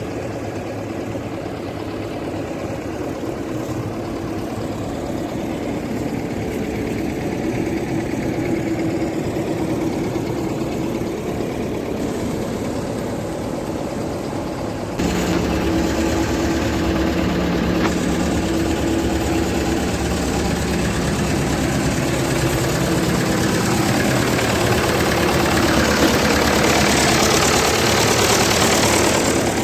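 Niva SK-5 combine harvester's diesel engine running steadily. About halfway through the sound suddenly steps up, louder and fuller.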